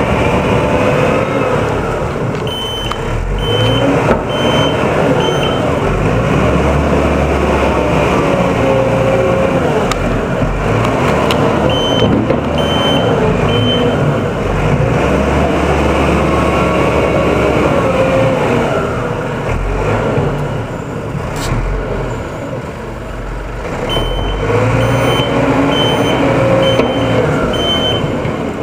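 Volvo wheel loader's diesel engine revving up and down over and over as it pushes and lifts snow. Its backup alarm beeps in three spells of short, evenly spaced high beeps as it reverses.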